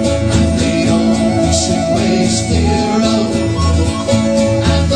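Folk band playing a sea shanty.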